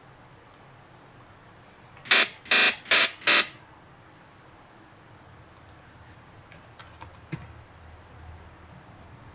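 Four short, buzzy synthesizer bursts in quick succession, an electric-shock zap sound effect being auditioned on Ableton Live's Operator synth. A few faint clicks follow some seconds later.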